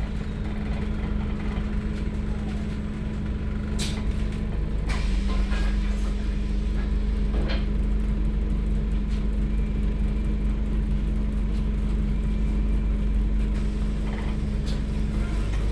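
Alexander Dennis Enviro400 MMC double-decker bus's rear-mounted diesel engine running steadily, a loud low drone heard inside the lower deck, with a few light rattles or knocks.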